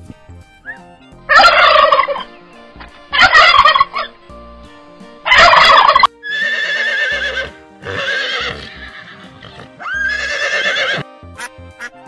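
Turkey gobbling, six warbling calls in a row about a second apart, the first three the loudest, over faint background music.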